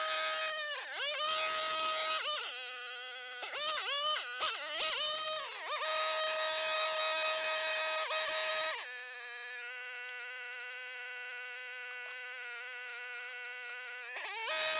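Gas-powered string trimmer running at high revs, its pitch dipping and recovering again and again as the line bites into thick weeds and tall grass. About nine seconds in it drops to a lower, quieter steady running as the throttle is eased off. It revs up again near the end.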